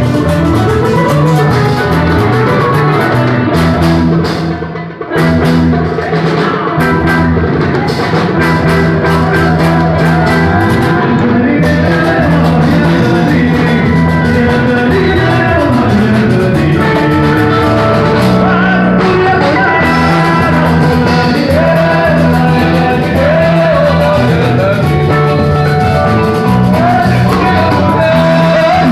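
Live band music: a singer over electric guitar and drums, loud and dense, with a brief drop in level about five seconds in.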